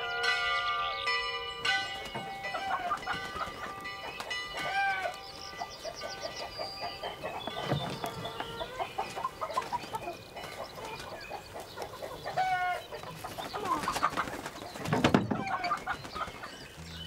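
Chickens clucking, many short calls overlapping, with music ending about a second and a half in.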